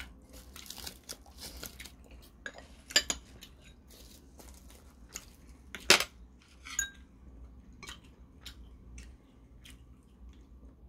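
Spoon and chopsticks clinking against ceramic bowls and dishes, with the loudest clinks about three and six seconds in. Near the start a crisp sheet of dried seaweed (gim) rustles as it is picked up.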